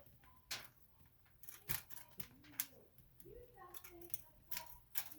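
Faint, muffled voices of family members upstairs, heard through the ceiling, with a few short scratching strokes about a second apart.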